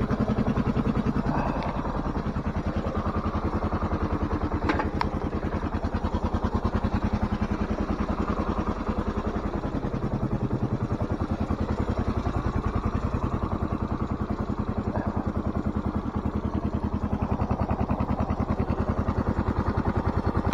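1993 Suzuki DR650's single-cylinder four-stroke engine running at low, steady revs with an even pulse, and a short click about five seconds in.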